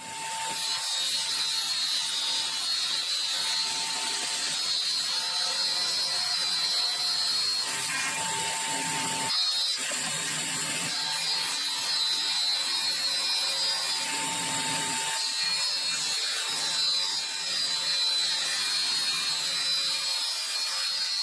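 Electric power tool running steadily as it works wood, its tone shifting a few times.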